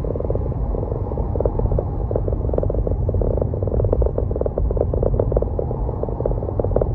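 A car driving on city roads: a steady low road and engine rumble, with a fast pulsing buzz over it in the middle pitches.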